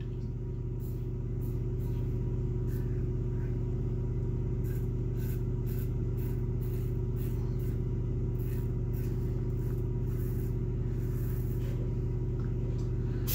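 Wolfman WR-2 1.55 mm solid-bar safety razor scraping through about a day and a half of lathered stubble in short strokes, one or two rasps a second, over a steady low hum.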